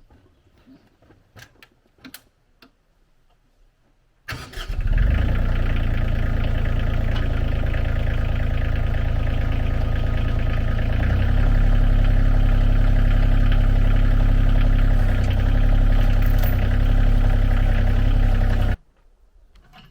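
A motor engine starts about four seconds in and runs steadily, picks up speed a little past halfway, then cuts off suddenly near the end.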